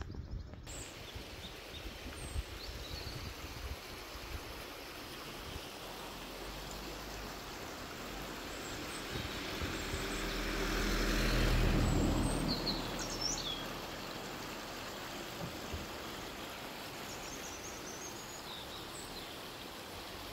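A car passing, its engine and tyre noise swelling slowly to a peak about halfway through and then fading away, over a steady outdoor hiss. Small birds chirp briefly just after the car goes by and again near the end.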